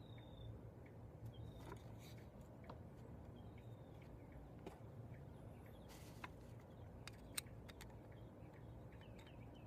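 Near silence with faint bird chirps and a few light clicks and taps.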